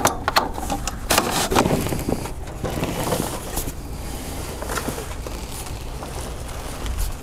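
Irregular clicks, knocks and clatter of a roll-out canopy's support arm being handled as the canopy is lowered by hand.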